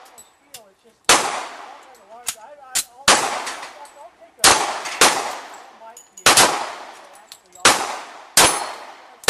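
Gunfire from a timed plate-shooting run: seven loud shots, unevenly spaced from about half a second to two seconds apart, each followed by a short echo. A few fainter sharp clicks fall between the shots.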